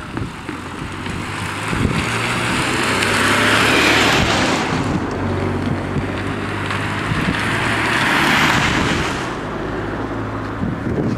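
Two road vehicles pass one after another, their tyre noise swelling and fading about four and eight seconds in, over a steady low hum.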